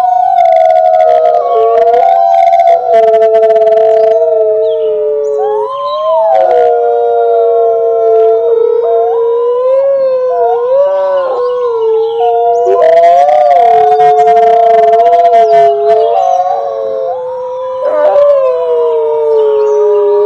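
Wolves howling together in chorus: two or more long, overlapping howls held at different pitches, each gliding slowly up and down. Short, rougher, higher cries break in around two to four seconds in and again around thirteen seconds in.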